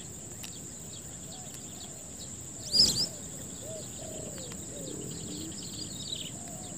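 Outdoor ambience of birds chirping and calling over a steady high-pitched hiss, with one short louder burst of calls about three seconds in.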